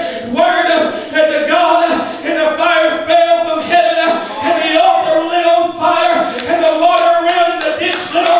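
A male preacher's voice amplified through a microphone, preaching in a loud, chanted sing-song cadence on held pitches. A few sharp taps come near the end.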